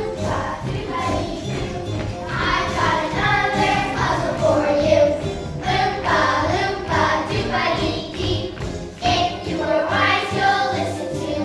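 A group of children singing a musical-theatre song over a backing track with a steady beat.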